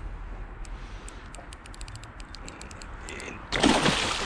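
Sharp, irregular clicking from a spinning reel as a hooked carp is played. About three and a half seconds in, a loud splash as the carp thrashes in the landing net at the water's surface.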